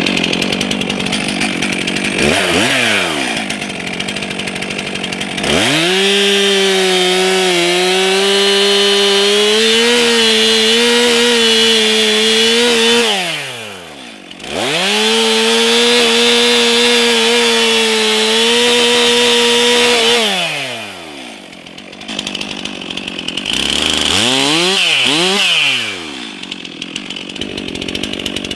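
Gas chainsaw cutting through a felled pine trunk from the top. It makes two long full-throttle runs of several seconds each, the engine pitch dipping slightly under load early in the first, and each run drops back to idle. Near the end come a few quick short revs.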